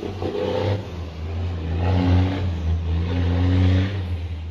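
Diesel semi-truck hauling a loaded dump trailer, its engine pulling hard under load as it drives away up a hill. The engine note swells about two seconds in and again near the end.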